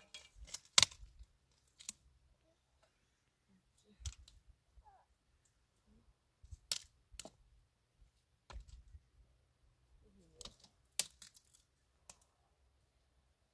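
Scattered sharp clicks and light knocks, a second or more apart, as of objects being handled.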